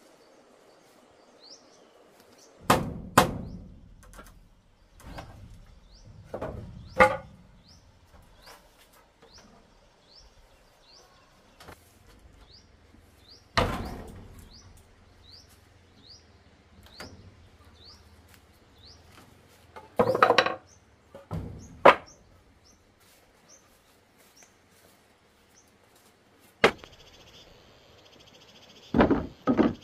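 Irregular knocks and thuds from work with wood, some in quick pairs, with a small bird giving a short rising chirp again and again. Near the end a steady high chorus of frogs and insects starts up.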